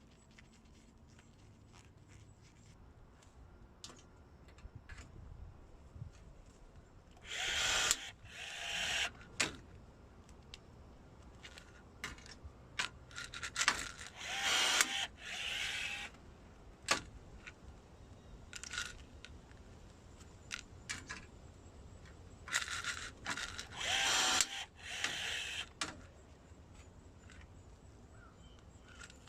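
Milwaukee M12 cordless rivet gun setting rivets: its electric motor runs in short whirring bursts of a second or two, in three groups, with small clicks and taps of handling in between.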